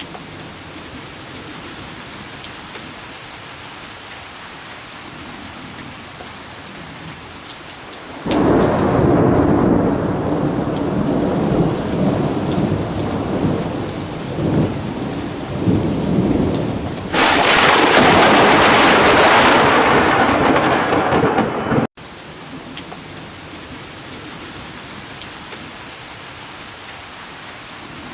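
Thunderstorm: steady rain throughout, with a long rumble of thunder building about eight seconds in. A louder crash follows about seventeen seconds in and cuts off suddenly about five seconds later, leaving the steady rain.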